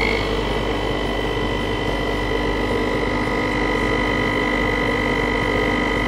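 Home espresso machine's pump humming steadily while it pulls a shot of espresso.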